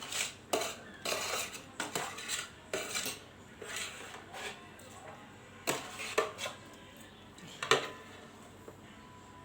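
Cutlery clinking and scraping against a dish in irregular strokes, with a sharper clink about three-quarters of the way in: the last of a plate of instant fried noodles being scraped up.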